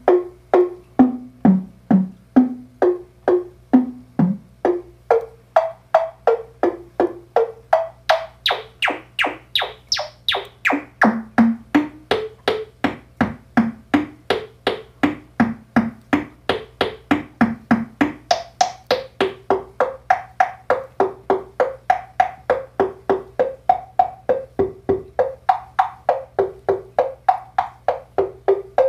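Make Noise 0-Coast synthesizer playing a steady run of short, pitched, wood-block and tom-like hits, about three a second, the notes stepping up and down. The hits turn brighter and clickier for a while in the middle as the knobs are turned, then mellow again.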